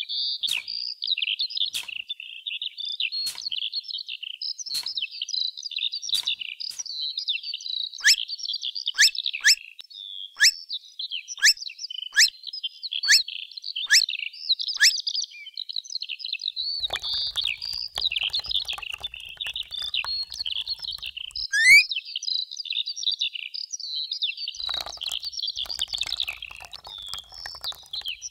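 Small birds chirping and twittering continuously in a high-pitched chorus; for several seconds around the middle, a run of short sharp rising chirps comes a little more than once a second.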